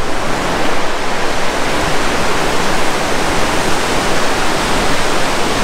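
Steady, loud rush of river water flowing over the rocks of a canyon.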